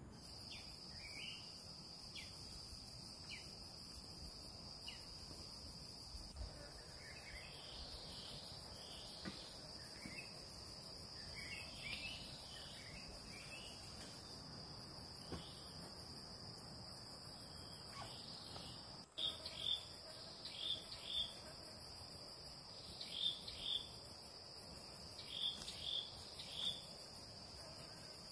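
Forest insects shrilling in a steady, high, even chorus. Short falling chirps call over it again and again, louder and more frequent from about two-thirds of the way in.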